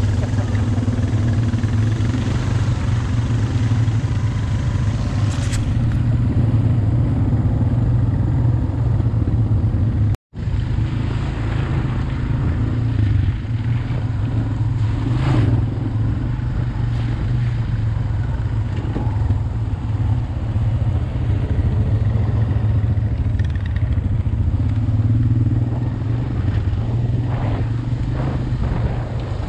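ATV engine running steadily under way, a constant low drone, with a brief dropout about ten seconds in.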